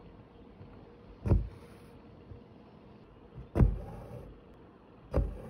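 Hand stitching: a needle going through thin canvas and a single strand of cotton embroidery floss drawn through after it, three stitches about two seconds apart.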